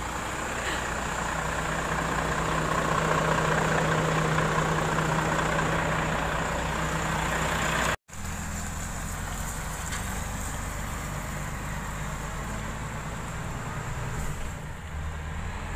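Heavy truck's diesel engine running steadily with a low drone. The sound drops out for an instant about eight seconds in, then returns as a quieter, lower engine hum.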